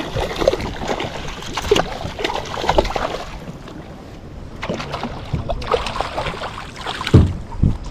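Wind buffeting the microphone and water slapping against a small boat's hull, with scattered knocks and clicks, quieter for a moment around the middle.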